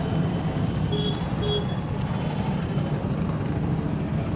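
Steady rumble of road traffic, with two short tones about a second in and half a second later.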